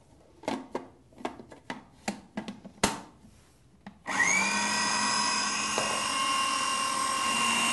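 Countertop food processor puréeing green peas: a series of plastic clicks and knocks as the lid and pusher are fitted on the bowl, then about four seconds in the motor starts, its whine rising quickly to a steady pitch and running loud.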